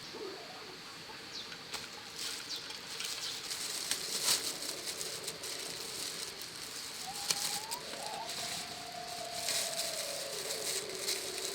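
Light rustling and scattered clicks, with one long wavering bird call starting about seven seconds in and falling in pitch near the end.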